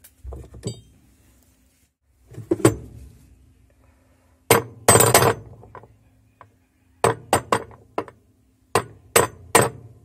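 Hammer blows on a steel spanner wrench, driving the tub-retaining nut of a washing machine tight: about a dozen sharp metallic clanks in uneven groups, ending in a quick run of strikes. The blows seat the nut against its stop.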